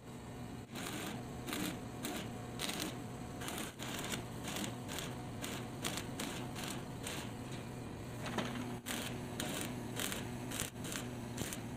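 Stick arc welding on a drill press's motor mount: the electrode crackles and sizzles in runs with brief breaks, over a low steady hum.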